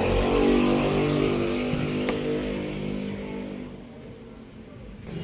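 A motor vehicle's engine running and fading away over a few seconds, with one sharp click about two seconds in.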